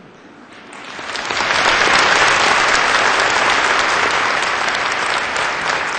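A large seated audience applauding. The clapping swells in over the first second or so, holds steady, then begins to thin near the end.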